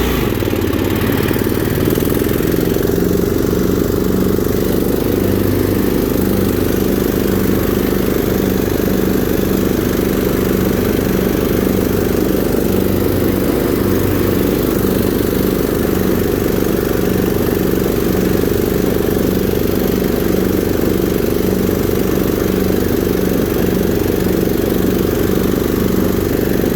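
Cub Cadet 1517 riding mower's 18 hp Kohler Command single-cylinder engine running steadily, with a slow, even throb.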